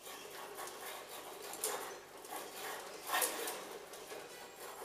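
Model truss tower rattling and clattering on a small shake table during a simulated medium earthquake, an irregular rasping racket with louder bursts about one and a half and three seconds in.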